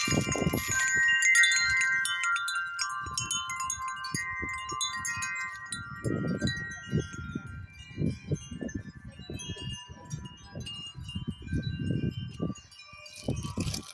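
Wind chime ringing: several overlapping clear tones, loudest in the first couple of seconds and then fading away. Gusts of wind rumble on the microphone through the rest.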